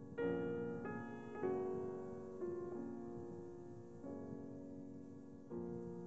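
Background music: slow, gentle piano, with new notes and chords struck every second or so and left to ring.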